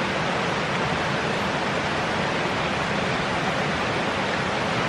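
Steady, even rushing noise with no distinct events, like running water or wind on the microphone.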